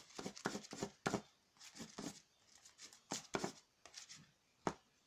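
A hand squishing and working a wet slime mixture of body wash, salt and shaving cream on a paper plate: short sticky squelches and slaps in an irregular run, about two a second.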